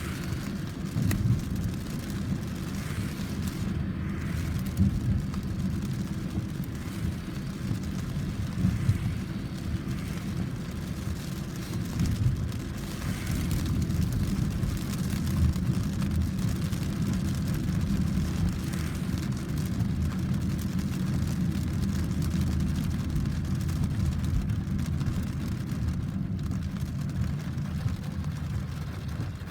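Thunderstorm: rain falling with a continuous low rumble underneath.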